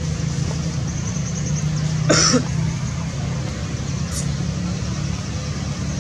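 A single short cough about two seconds in, over a steady low rumble.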